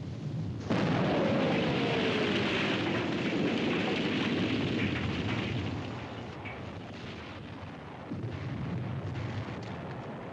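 Artillery shell explosion: a sudden heavy blast just under a second in, rumbling on for several seconds with a slowly falling whistle through it, then dying down. A smaller burst follows about eight seconds in.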